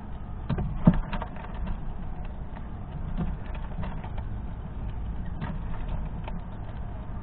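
Squirrel rummaging through a pile of sunflower seeds on a plastic feeder tray. Irregular small clicks and rattles of seeds and shells, with one sharper knock about a second in, over a steady low rumble.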